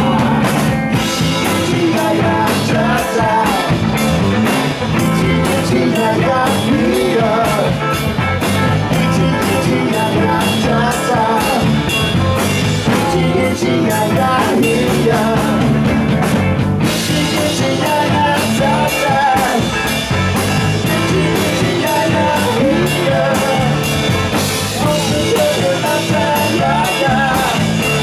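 Live rock band playing: electric guitar, bass and drum kit with steadily ticking cymbals, and a singer's wordless vocal lines over them.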